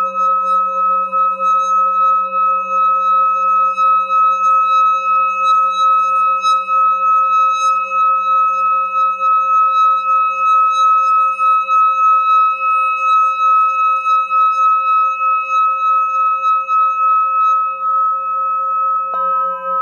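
Metal singing bowl sung by circling a stick around its rim: one steady, sustained ring with several overtones, swelling and fading gently as the stick goes round. About a second before the end a strike adds a new ring.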